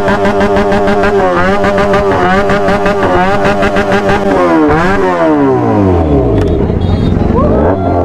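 Motorcycle engine running at high revs and holding there, then dropping back to a low idle-like note about five seconds in, and climbing again near the end.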